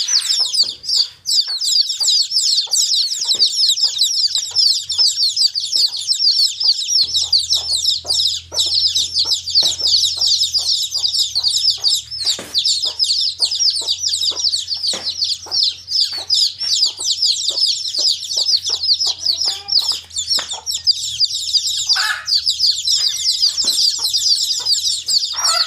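A brood of baby chicks chirping nonstop, a dense chorus of high, short, overlapping peeps, with scattered sharp ticks among them.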